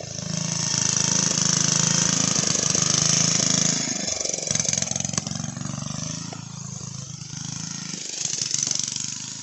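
Small single-cylinder engine of a homemade go-kart, an 8 horsepower Briggs & Stratton, running under way. It is loud for the first few seconds, then drops and its pitch dips and recovers about four seconds in. It stays quieter as the kart moves off, with a brief swell near the end.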